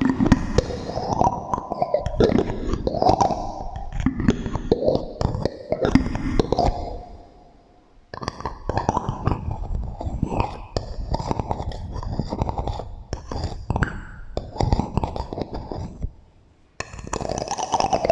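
Dense, rapid tapping and scratching on small household objects, run through a heavy echo effect that gives each tap a booming, smeared tail. The sounds come in runs, stopping briefly about eight seconds in and again near the end.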